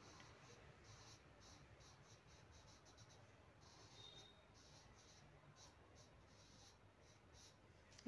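Faint scratching of a pencil shading on paper in quick, short strokes, with a brief pause about three seconds in.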